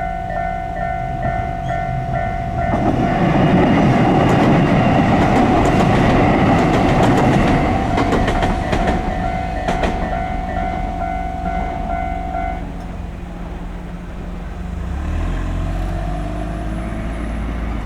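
Japanese level-crossing alarm ringing its standard electronic bell at a steady repeating beat while a diesel railcar passes, its rumble swelling and a run of sharp wheel clicks over the rail joints. The bell stops about twelve seconds in, and a low rumble follows near the end.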